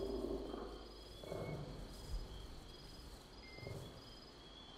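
Faint forest night ambience: insects chirping in short, evenly repeated high pulses over a low steady rumble, with a few soft, low swells of sound.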